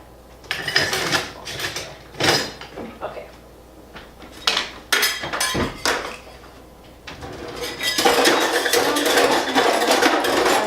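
Dishes and cutlery clinking and knocking as they are handled and set down, a few separate clinks at first, then a dense stretch of rattling near the end.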